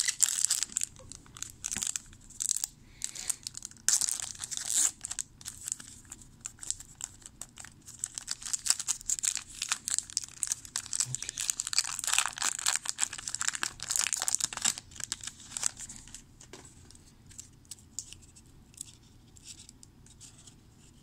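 Wrapper of a 2003 Bowman Football trading card pack being torn open and crinkled, with dense crackling that thins out over the last few seconds.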